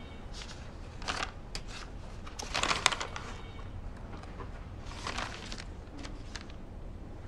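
Paper and document folders being handled, rustling in short bursts, the loudest about two and a half seconds in, over a low steady room hum.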